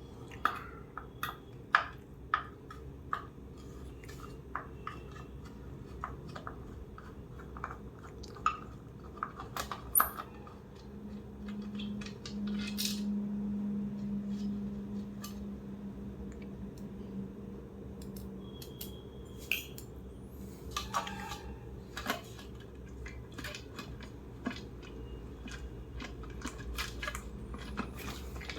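Scattered clicks, taps and clinks of small hard parts and tools being handled while a steam iron is dismantled. A low steady hum runs through the middle for about ten seconds.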